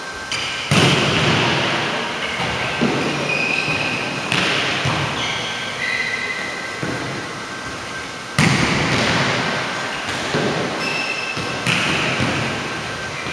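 Volleyballs being spiked and smacking onto a hardwood gym floor: four loud sharp hits about three to four seconds apart, each echoing through the gymnasium, with lighter ball knocks in between. A few short, high sneaker squeaks come between the hits.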